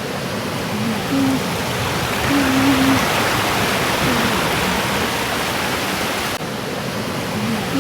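Steady rushing noise with several short, faint low-pitched moaning tones, some held level and some gliding up and down. This is the sound presented as a mysterious wailing or crying heard at dusk.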